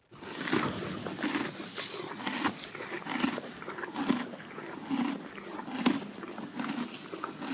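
A horse chewing hay: a repetitive, kind of crunching sound, a little more than one chew a second.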